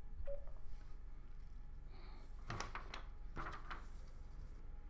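A single short electronic beep from the intercom's touch-display module as an on-screen button is pressed, followed about halfway through by a few faint, brief sounds.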